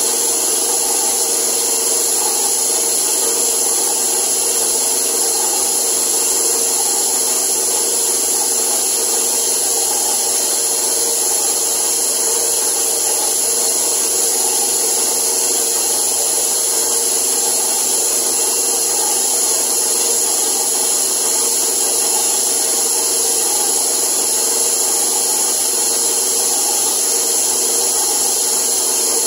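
Electric stand mixer running steadily, its dough hook kneading a soft, still-loose bread dough in a metal bowl.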